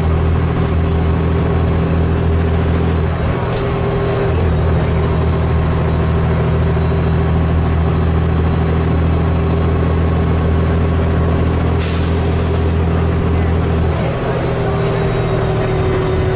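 Cummins L10 diesel engine of a Leyland Olympian double-deck bus pulling along through its Voith DIWA automatic gearbox, heard from inside the lower saloon. The engine note is steady, shifts about three seconds in, and drops near the end, with a short hiss about twelve seconds in.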